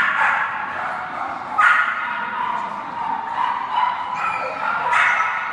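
A dog whining and yipping in a high pitch almost without pause, with sharper, louder yelps at the very start, about a second and a half in, and about five seconds in.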